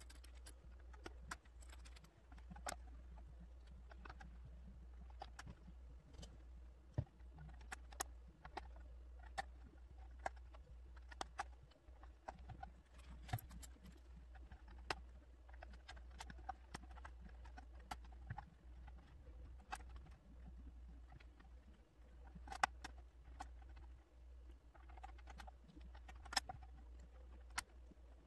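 Curved plastic pieces of a Ravensburger 3D puzzleball clicking and tapping as they are handled and pressed into place: irregular sharp clicks, a few louder than the rest, over a steady low hum.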